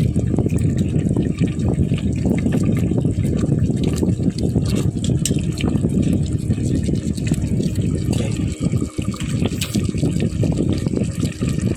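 Tofu cubes cooking in a pan of tuna oil and garlic: a steady bubbling sizzle with small crackles.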